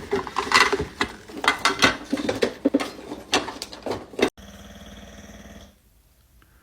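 A pet animal's vocal sounds in quick, irregular bursts, cutting off suddenly about four seconds in. A steady hum follows briefly.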